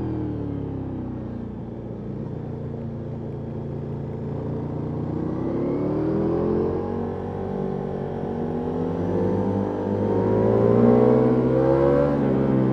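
Ducati Multistrada V4S Rally's V4 engine through an Akrapovic exhaust: revs falling off at first, then rising twice with a short dip between, and dropping again near the end. Heard from the rider's backpack, with some wind noise.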